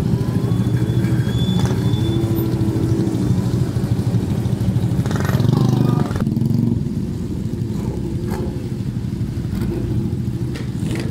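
Motorcycle engines running as bikes pull away one after another at low speed, with a few short rises in revs. The engines are loudest in the first six seconds, then quieter as the nearest bike moves off.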